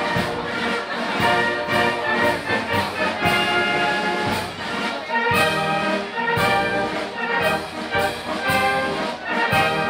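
Brass band playing a march: trumpets and trombones over a steady beat.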